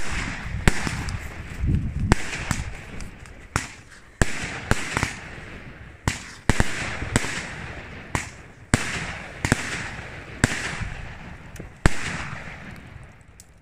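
Fireworks firing shot after shot: a sharp bang about once a second, each followed by a crackling hiss as it fades. The last big bang comes near the end and the sound dies away after it.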